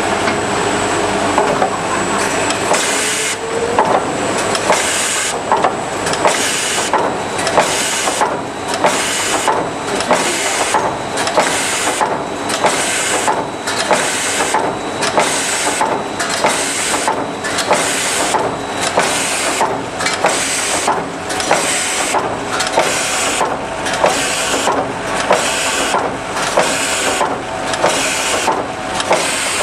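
OMAS P808 TS bucket-handle making machine running in a steady production cycle, about one stroke a second. Each stroke brings a sharp knock and a short hissing rush; the cycling starts about three seconds in.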